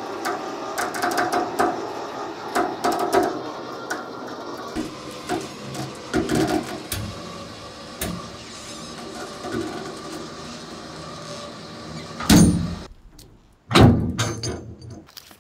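Electric winch on a log trailer running under load, dragging a heavy walnut log up onto the trailer by cable, with scattered creaks and knocks from the log. Two loud thuds come near the end, about a second and a half apart.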